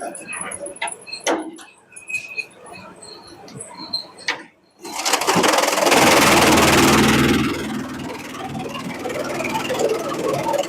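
Bamboo shredder machine starting up about five seconds in, going from faint clicks and knocks to a sudden loud, steady running sound that eases slightly after a couple of seconds.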